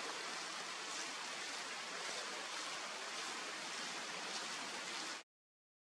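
A steady, even hiss of outdoor noise that cuts off abruptly to silence about five seconds in.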